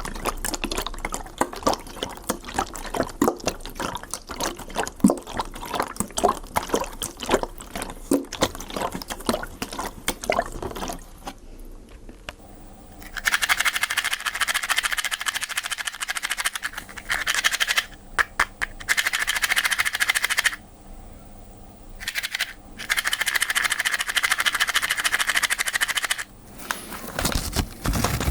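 Water sounds: first a dense, irregular patter of drops and small splashes, then from about halfway a steady hissing rush of water that stops and starts again several times.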